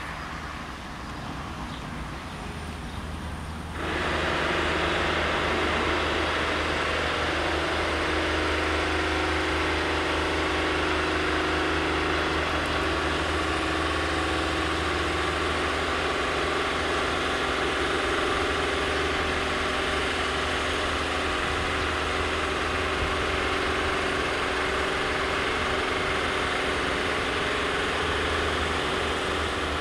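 Diesel engine of a TFC DH2 railcar running steadily, with a low hum. The sound jumps louder about four seconds in.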